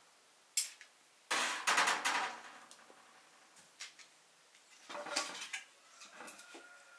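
Metal clatter and knocks from cookware and the metal stove being handled: a sharp click, then a loud rattling clatter that rings briefly a little over a second in, and another cluster of knocks around five seconds in.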